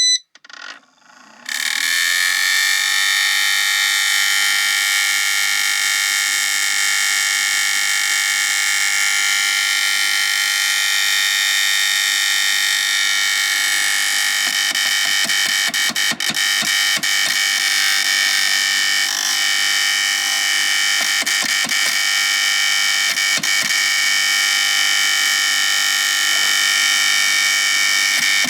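Rocket1 3D printer's cooling fan starting up about a second and a half in and running with a loud whine of many steady tones, with irregular ticking and crackling from about halfway. The abnormal noise comes from a cheap fan, loud enough that the owner judges it needs replacing. A short beep sounds just before the fan starts.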